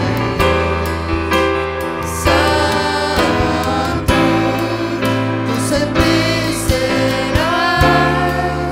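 Live worship band playing a praise chorus: women singing into microphones over keyboard, bass and a drum kit, with regular drum hits.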